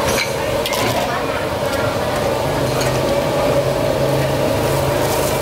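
A metal ladle clinks against a large steel broth pot a few times in the first two seconds, over a steady hum and background voices.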